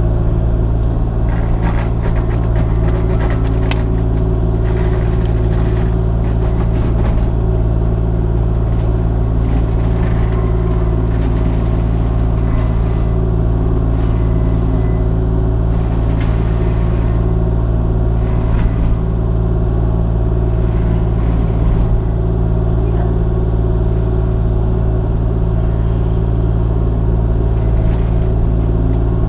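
Kubota KX-040 mini excavator's diesel engine running steadily at working speed, driving a Brush Hound FX-26 hydraulic mulcher head, with scattered short crackles and knocks as brush and small suckers are chewed up.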